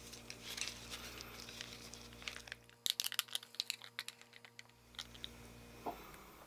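Thin plastic kimchi tub crinkling in a gloved hand, then a quick run of sharp clicks about three seconds in as chopsticks scrape kimchi out of the tub onto a block of tofu.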